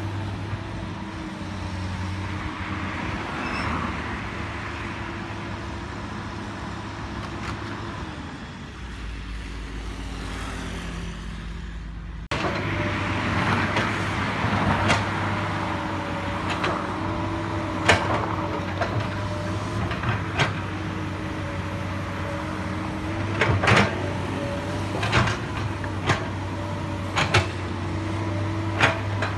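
Komatsu PC200 hydraulic excavator's diesel engine running steadily, its pitch sagging for a few seconds before a sudden cut about twelve seconds in. After the cut it runs louder, with scattered sharp knocks and clanks of the bucket working soil.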